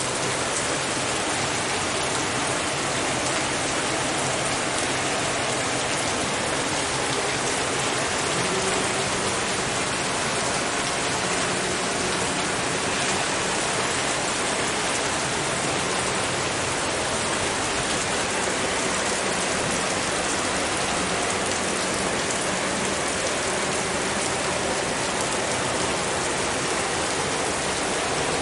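Heavy rain falling steadily, with a faint low hum underneath.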